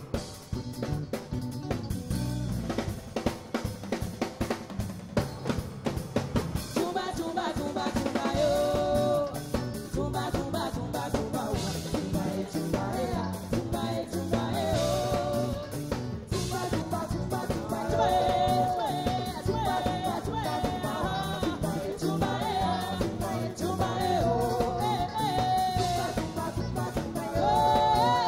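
Live band performing a song: a drum kit and percussion play a driving groove, and about eight seconds in a woman's lead vocal comes in, singing held, wavering notes over the drums and guitars.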